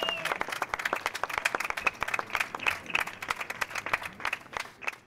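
A small audience clapping, with the claps thinning out and fading away near the end.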